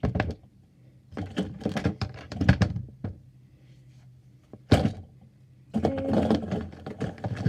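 Handling and clatter of small fidget toys being put into a storage bin: a few scattered thunks and knocks in short clusters, with a sharp knock about five seconds in.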